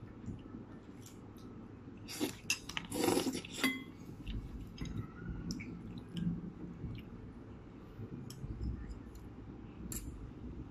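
Forks and spoons clinking against plates and bowls during a meal, with chewing. The clinks come at irregular moments, with a louder cluster about two to four seconds in.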